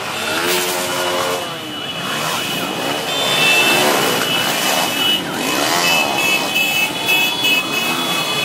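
A convoy of small motorcycles and scooters riding past one after another, their engines rising and falling in pitch as each goes by. A steady high tone sounds over them for stretches.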